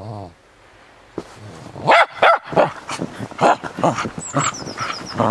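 Cairn Terrier barking: one short bark at the start, then after a pause a quick run of sharp, loud barks from about two seconds in.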